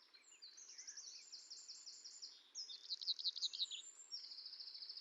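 Birds singing: high, fast trills of rapidly repeated notes, one song after another, loudest about three seconds in, over a faint steady hiss.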